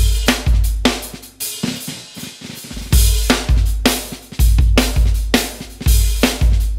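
Groove Drum Co. Pancake drum kit, with its shallow shells in high tuning, played as a groove of kick drum, snare and Paiste cymbals. About two seconds in the drums drop out briefly under ringing cymbals, then the beat comes back in.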